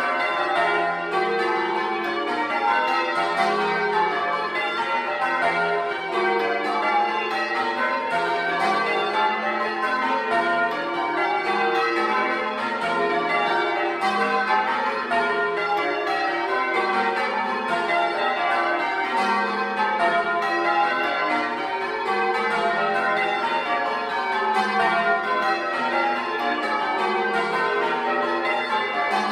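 A ring of ten church bells, tenor in F, change-ringing Grandsire Caters, heard at close range inside the belfry. The strikes come in an unbroken, even stream, with the heavy tenor sounding lowest.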